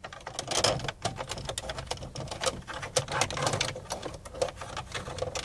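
2008 Mini Cooper's plastic dashboard trim cover beside the air-conditioning vent being pried off with a small flat screwdriver: a quick, irregular run of plastic clicks and rattles as it is worked loose.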